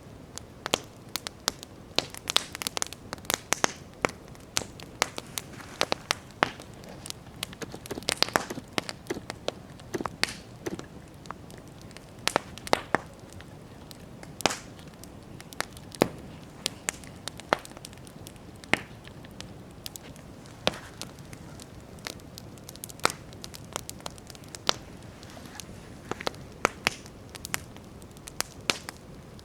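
Wood campfire crackling, with irregular sharp pops and snaps over a steady low hiss of burning.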